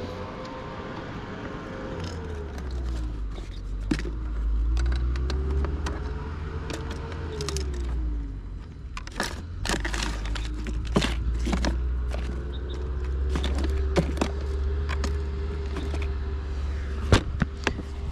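An engine running with a steady low rumble, its pitch dropping and rising several times. Many sharp clicks and rattles close by, most of them in the second half.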